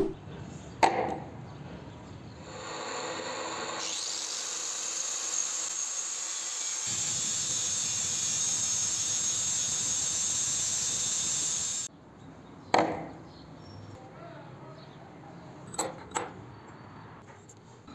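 An abrasive grinder grinding the head of a steel engine valve, throwing sparks. It sets in with a steady hiss about two and a half seconds in, grows louder and higher at about four seconds, and cuts off sharply near twelve seconds. A sharp knock comes at the start, and a few knocks of steel valves set down on a wooden table come near the end.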